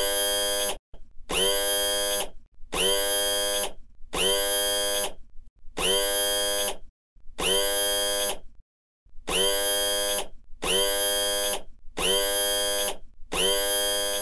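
Electronic scanner sound effect: a buzzy synthetic beep about a second long, repeated about ten times with short gaps, each beep dipping slightly in pitch at its end.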